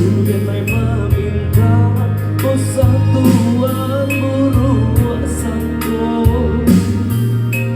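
A live band playing a song: a strong bass line stepping between notes under regular drum strokes, with a melody line weaving above.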